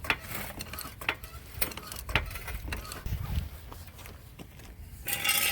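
Irregular metallic clicks and rattles from a floor jack and jack stand being worked under a car, with a short scraping noise near the end.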